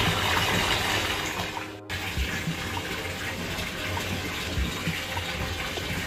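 Bath tap running, water pouring into a filling bathtub in a steady rush. It breaks off for a moment about two seconds in, then goes on a little quieter.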